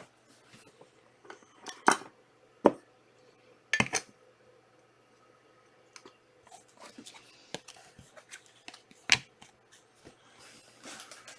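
Trading-card packaging and cards being handled: four sharp snaps and crackles of wrapper and card stock, with quieter rustling between them.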